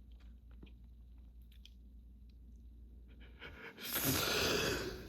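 A person sneezes once, loud and breathy, lasting about a second, near the end, from a nose irritated by pollen allergy. Before it there are a few seconds of faint small ticks.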